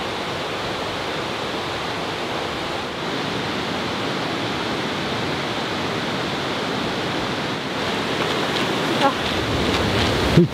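Steady rushing noise throughout, with a brief faint tone about nine seconds in and a short low thump near the end.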